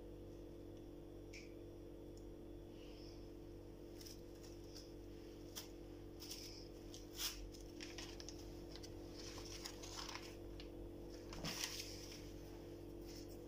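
Light, scattered clicks and rustles from hands handling a cloth, a plastic sheet and a foam tray, starting about four seconds in and thickest near the end. Under them runs a steady low hum.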